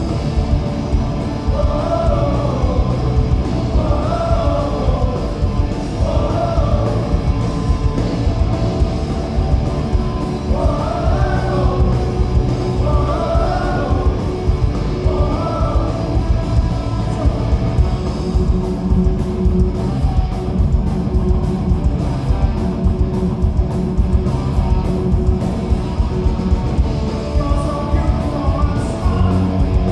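Punk rock band playing live: a singer's voice over distorted electric guitars and a steady driving beat. The vocal lines run through the first half, drop out for an instrumental stretch of guitars after about seventeen seconds, and come back near the end.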